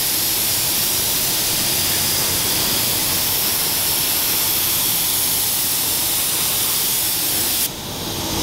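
Compressed-air spray gun spraying primer onto car bodywork in a steady hiss. The hiss dips briefly near the end, then carries on.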